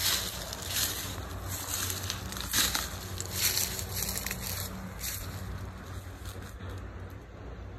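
Footsteps crunching through dry leaf litter on the forest floor, a little more than one step a second, stopping about five seconds in. A steady low hum runs underneath.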